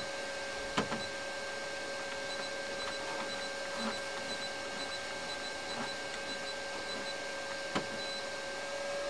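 Cubicon Single 3D printer humming with a steady two-tone whine while its control dial is turned and pressed to select a print file, giving a few sharp clicks, the clearest about a second in and near the end.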